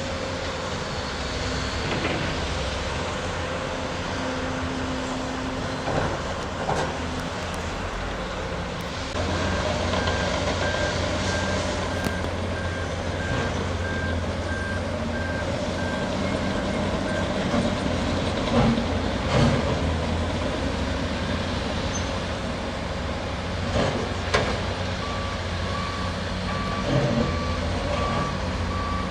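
Heavy construction machinery: diesel engines running steadily, with the drone growing louder about a third of the way in, and several sharp metallic clanks. Reversing alarms beep: a higher-pitched one for several seconds from about a third of the way in, and a lower-pitched one starting near the end.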